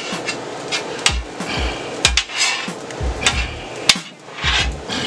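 Metal spatulas clanking and scraping on a steel flat-top griddle as fried rice is chopped and tossed, with sharp metal knocks about once a second.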